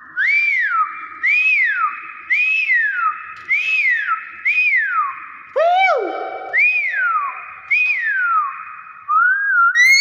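Hill myna whistling: a series of about eight loud rising-then-falling whistled notes, roughly one a second, with one lower-pitched swoop just past the middle.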